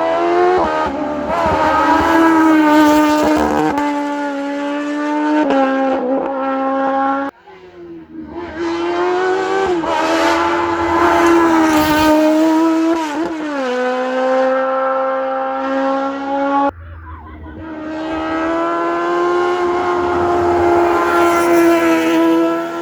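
Race car engines running at high revs, their pitch holding fairly steady with small rises and drops at gear changes. The sound breaks off suddenly twice, giving three separate stretches.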